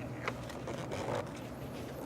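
Spark plug wire boots being handled and pushed onto the distributor cap terminals: two faint clicks over a low steady hum.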